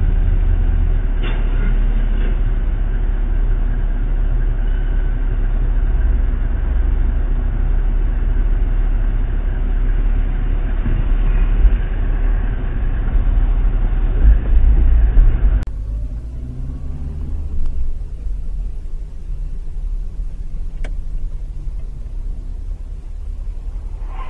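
Low, steady rumble of a car's engine and tyres heard from inside the cabin through a dashcam microphone. It swells briefly louder a little after halfway, then drops to a quieter rumble for the rest.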